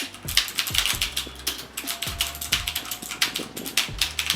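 Typing on a mechanical keyboard with Outemu blue clicky switches: a rapid run of sharp, loud clicks, several keystrokes a second.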